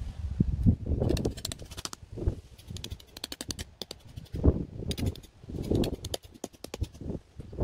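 Putting up a poled fabric windbreak: several short bursts of rapid rattling clicks, each with dull thumps underneath, as its metal poles and screen are handled.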